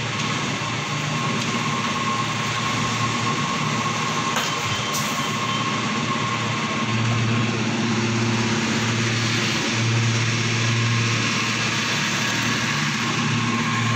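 Petrol-station fuel dispenser running while it pumps fuel into a car: a steady mechanical hum with a thin, even whine above it.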